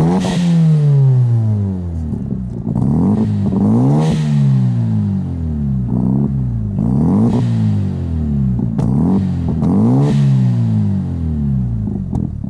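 Mazda RX-7 FD's twin-rotor rotary engine being free-revved while parked, through its new aftermarket A'PEXi N1 exhaust with the leaks freshly fixed. The revs climb and fall back several times, about every three seconds.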